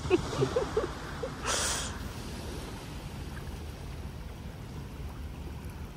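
Seashore ambience on a calm day: a steady low rumble of wind and gentle sea, with a brief hiss about a second and a half in.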